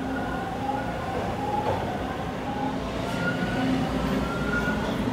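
TTC T1 subway train pulling out of the station: the rumble of its wheels on the rails under the steady whine of its traction motors, which creeps slightly higher in pitch as it gathers speed.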